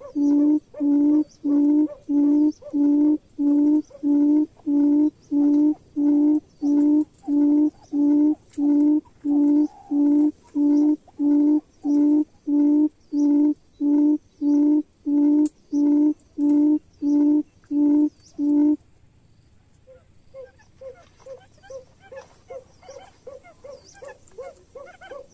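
A buttonquail's deep hooting call: a long, even series of loud hoots, about one and a half a second, stopping suddenly after about eighteen seconds. Near the end a softer, higher series of quicker notes, about three a second, starts and grows louder.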